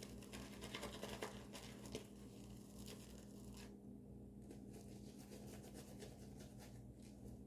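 Faint scratchy strokes of a wet shave on lathered stubble, densest in the first few seconds and sparser after.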